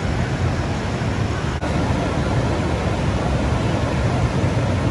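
Steady rushing of the Kabul River in flood, its fast, high water carrying debris, with a brief break about one and a half seconds in.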